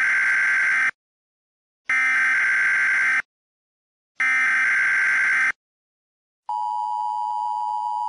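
Emergency Alert System-style warning tones: three harsh, screeching digital data bursts, each about a second long with a second of silence between them. About six and a half seconds in, the steady two-tone attention signal begins.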